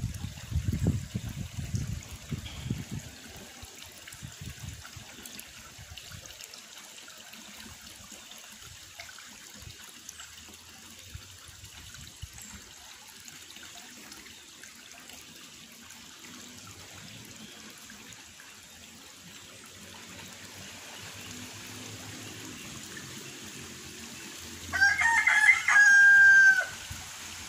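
A rooster crows once, loudly, near the end, the call ending on a long held note. Before it there is only a faint steady outdoor background, with some low rumbling in the first few seconds.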